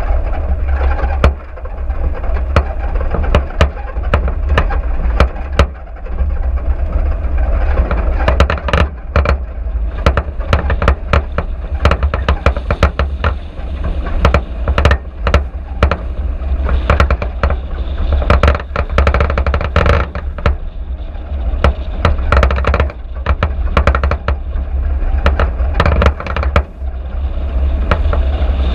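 A car driving over a rough dirt track: a heavy, steady low rumble with frequent sharp knocks and rattles as it jolts over ruts and stones.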